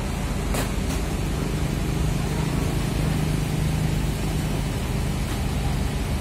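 Diesel engine of an A.L.S intercity coach running as the bus rolls slowly past: a steady low hum that grows louder around the middle. Two faint short clicks sound about half a second in.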